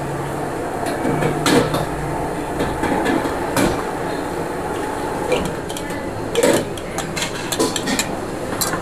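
Chopsticks and bowls clinking and knocking as noodle soup is served out of a steel pot: a few sharp clinks over a steady background rumble.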